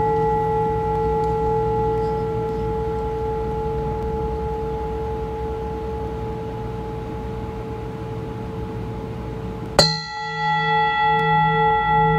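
Metal singing bowl ringing, its tone slowly fading. About ten seconds in it is struck again with one sharp hit, and the ring comes back louder with a slow wavering pulse, about one and a half beats a second.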